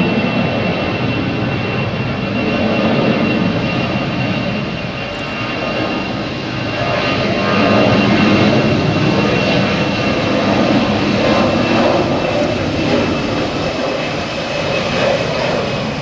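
Airbus A320-family airliner's twin jet engines running at takeoff thrust during the takeoff roll: a loud, steady rushing noise with a thin, steady high whine over it, easing slightly about five seconds in and swelling again a few seconds later.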